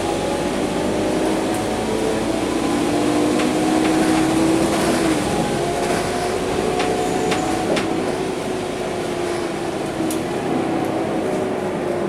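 Scania K230UB city bus's rear-mounted five-cylinder diesel and drivetrain running as the bus cruises, heard inside the passenger cabin: a steady drone with several whining tones that drift slightly in pitch, and a few light interior rattles and clicks.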